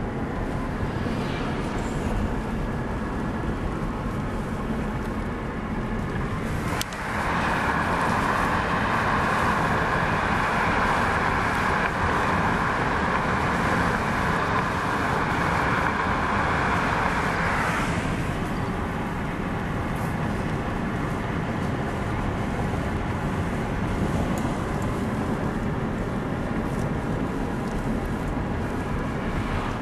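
Car driving along a road, its tyre and road noise heard from inside the cabin. About seven seconds in a louder hiss comes up and holds for about ten seconds before easing back to the steady running noise.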